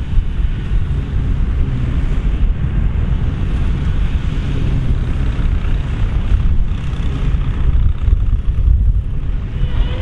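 Dronningborg D1200 combine harvester working in barley, its engine and threshing machinery running with a steady low rumble.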